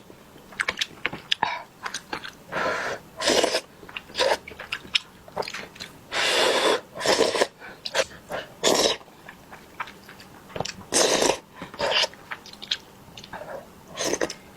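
Close-up eating sounds of someone eating small wontons: chewing and mouth noises in short, irregular bursts, several about half a second long.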